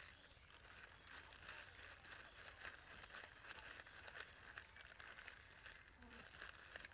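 Near silence: quiet outdoor background with a steady high-pitched whine and scattered faint clicks and taps.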